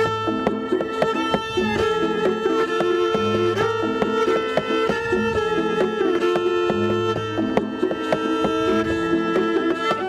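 Solo viola played with live looping: a held bowed melody over layered repeating lines, with a low figure that comes back about every three and a half seconds.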